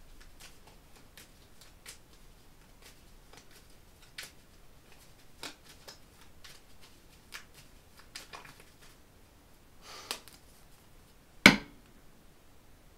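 Tarot cards being handled on a table: scattered soft clicks and rustles of cards sliding and being set down, with one sharp card tap near the end.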